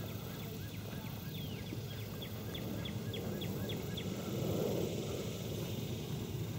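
A bird calls a quick run of about ten short, high, downward-slurred notes, roughly three a second, over a steady low outdoor rumble. A brief swell of low noise comes about four and a half seconds in.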